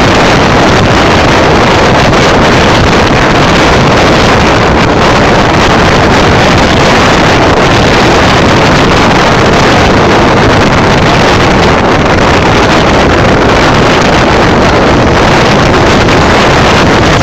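Loud, steady rush of wind on the microphone over the running noise of a moving sleeper train.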